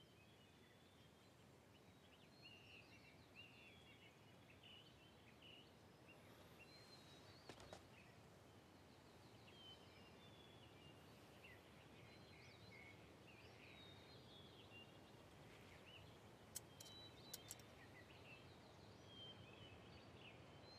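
Near silence: faint outdoor background with small birds chirping on and off, and a few soft clicks.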